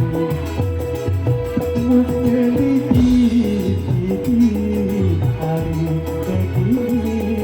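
Band music: a plucked-string melody line over sustained chords and a strong bass, with no words sung.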